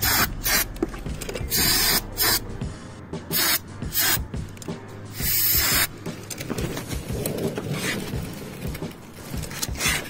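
Aerosol brake cleaner hissing onto a motorcycle's rear brake rotor and caliper in several short bursts over the first six seconds, then stopping.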